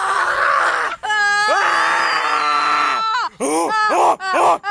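A boy screaming: a rough scream, then a long held yell, then near the end a quick run of short wailing cries.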